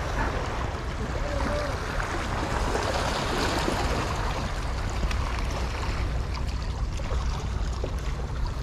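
Sea waves washing over shore rocks, a steady rushing.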